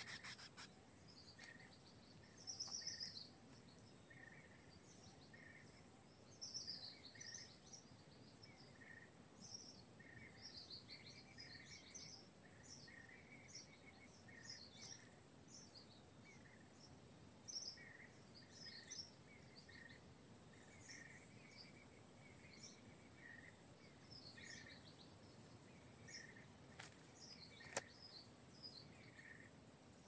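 Steady high-pitched insect drone, with short bird chirps repeating about once or twice a second, and one sharp click near the end.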